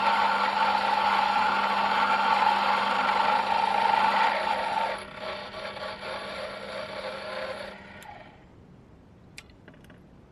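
Proxxon PD 250/E mini lathe with an indexable-tip tool turning a stainless steel bolt: a loud, steady scraping cut over the motor hum for about five seconds, then a quieter run with the tool off the work until the spindle stops about eight seconds in. A few light clicks follow.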